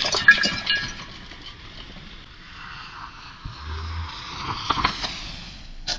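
Car crash on a wet road: glass breaking and debris clattering in a rapid run of sharp clinks that dies away about a second in. A steady hiss follows, with a few more knocks near the end.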